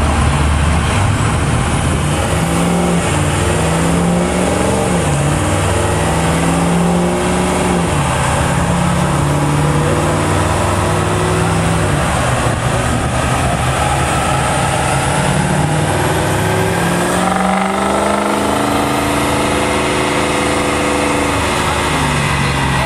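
2005 Ford F-350's 6.0 L Power Stroke turbo-diesel V8 running hard on a chassis dyno. The engine note climbs and drops in steps, as on shifts through the gears, and climbs again about 17 seconds in.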